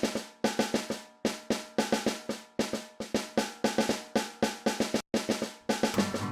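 A drum kit playing a beat on its own as a song intro, with snare hits several times a second and a brief break about five seconds in.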